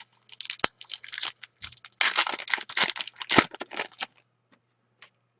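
A hockey card pack's wrapper being torn open and crinkled, with a sharp click just after the start and dense crackling for about four seconds, then quiet.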